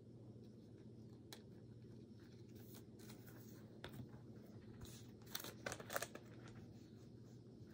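Faint crinkling and rustling of thin plastic penny sleeves and trading cards being handled as cards are slid into the sleeves, a few short rustles with a cluster about five to six seconds in, over a low steady room hum.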